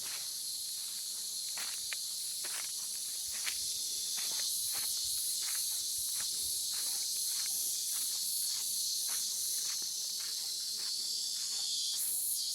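Cicadas singing, a continuous high shrill buzz that pulses rhythmically for a few seconds midway, with soft footsteps walking underneath.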